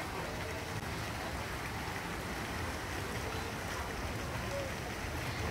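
Steady rush of water pouring down a water-ride chute and churning in the splash pool below.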